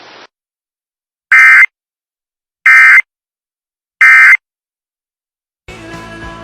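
Emergency Alert System end-of-message signal: three identical short bursts of harsh digital data tones, about a second and a half apart, marking the end of the severe thunderstorm warning. Music starts near the end.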